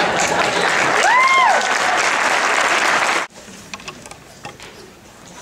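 Audience applauding in a hall, with one short high note that rises and falls about a second in. The applause cuts off abruptly a little past three seconds, leaving only faint knocks.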